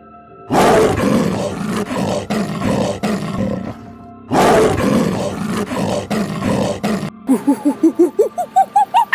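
A large animal roaring twice, each roar about three seconds long, over steady background music. Near the end, a quick series of short calls climbs in pitch.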